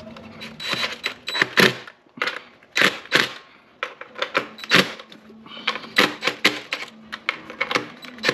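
Cordless impact driver running down valve cover bolts: short bursts of rapid hammering clicks, about five of them with brief pauses between.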